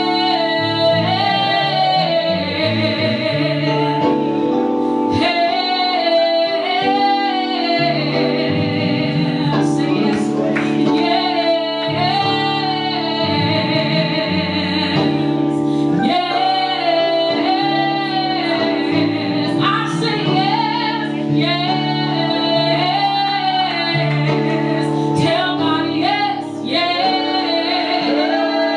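Gospel music: a woman singing over sustained keyboard or organ chords.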